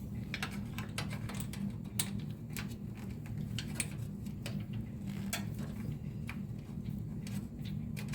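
Scattered small clicks and taps of metal parts being handled as PCI expansion slot covers are worked loose from a PC case, over a steady low hum.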